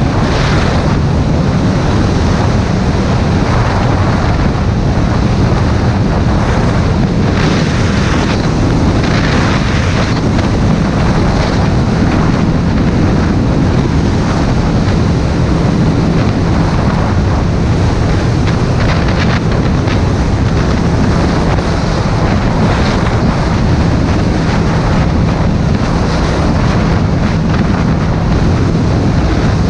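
Loud, steady wind noise rushing over the microphone at riding speed, with a low, steady motorcycle engine hum underneath.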